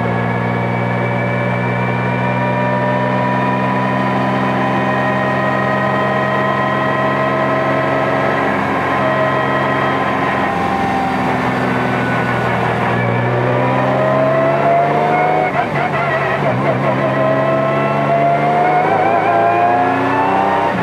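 Honda NSX GT3's twin-turbo V6 heard from inside the cockpit, held at steady low revs while rolling down the pit lane. From about thirteen seconds in it accelerates hard out of the pit exit, revs rising in sweeps broken by upshifts.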